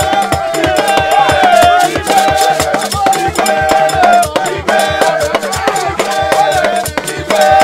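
A group of men singing in chorus to hand drums and a rattling shaker, keeping a fast, steady beat.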